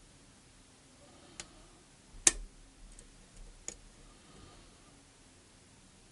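Lock pick working the pin tumblers of a pin-tumbler challenge lock held under tension: a few sharp metallic clicks, the loudest a little past two seconds in.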